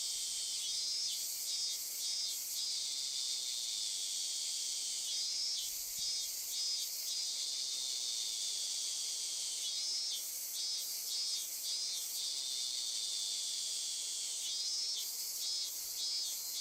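Insect chorus in a nature ambience: a steady high-pitched buzzing drone, with a pulsed trilling call in groups of three or four that comes back about every four to five seconds.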